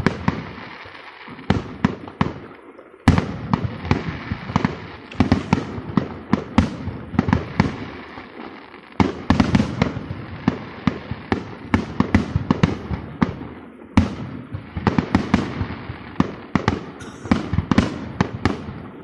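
Aerial firework shells bursting one after another in a rapid barrage: many sharp bangs and crackles close together, with heavier volleys starting about three, nine and fourteen seconds in.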